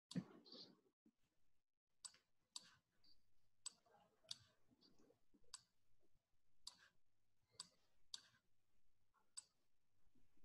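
Near silence broken by about a dozen faint, sharp clicks at uneven intervals of roughly half a second to a second.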